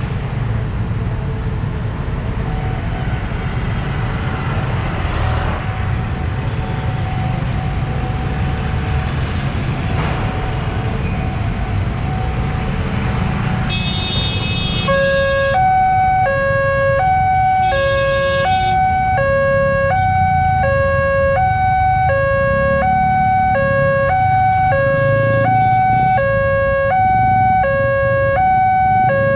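Railway level-crossing warning siren. It starts about halfway through with an electronic two-tone wail, a low and a higher tone alternating evenly about every two-thirds of a second. Before that there is only the steady rumble of road traffic, which goes on beneath the siren.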